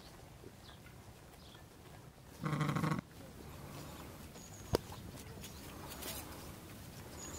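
A sheep bleats once, a short call of about half a second. About two seconds later there is a single sharp click.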